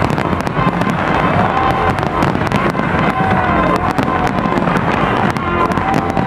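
A dense barrage of aerial firework shells bursting and crackling in rapid, continuous succession, with music playing along.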